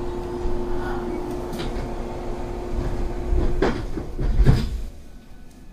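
Passenger doors of a JR West 225-series electric train sliding shut, ending in a thud about four and a half seconds in, after which the surroundings turn much quieter. A steady hum from the standing train runs underneath.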